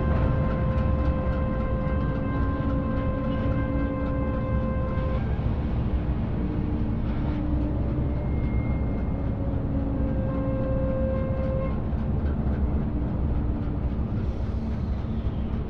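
Steady low rumble of a passing freight train, with faint ticking and several steady tones sounding over it that stop and change every few seconds.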